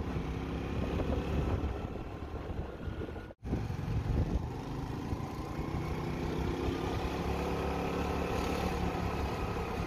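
Motorcycle engine running while the bike is ridden along a road, its pitch drifting gently up and down with speed. The sound breaks off for an instant about a third of the way in.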